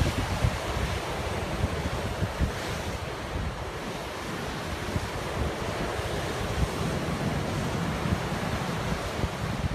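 Heavy surf, raised by an approaching hurricane, breaking and washing up a sandy beach, with gusty wind buffeting the microphone in low rumbles.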